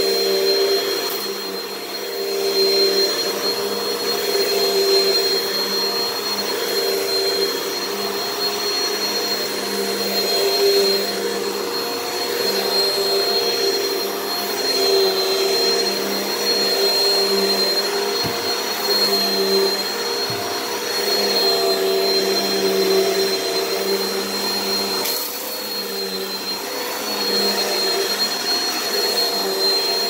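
Hoover bagless cyclonic upright vacuum cleaner running on carpet: a steady motor whine with a high thin tone, its level rising and falling slightly as it is pushed back and forth. A freshly repaired machine working normally.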